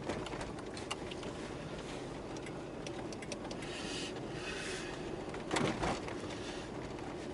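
Toyota Aqua hybrid driving through a wet-snow storm: a steady rumble of road and wind noise with scattered light ticks, two soft swishes about four seconds in, and a brief louder rush a little later.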